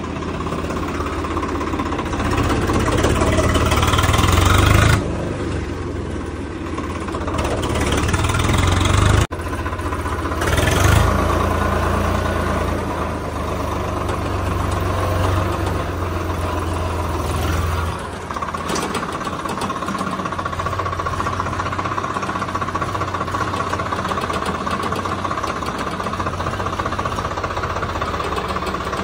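Tractor diesel engine running: it revs up and eases off twice in the first several seconds, then runs steadily.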